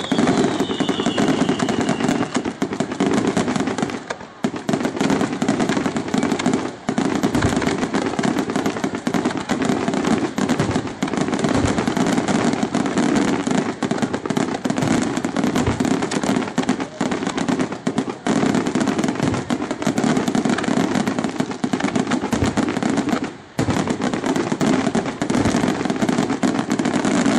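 Aerial fireworks display in a dense barrage: shells bursting and crackling in rapid, overlapping volleys with only a few brief lulls, and a short falling whistle just after the start.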